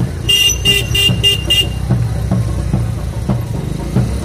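A vehicle horn tooted about five times in quick succession, over the steady low rumble of road traffic.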